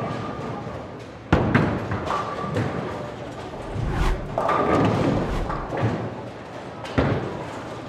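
Heavy thuds and knocks of bowling balls and pins in a bowling alley. Sharp hits come about a second and a half in and again near the end, with a low rumble and more thuds in between.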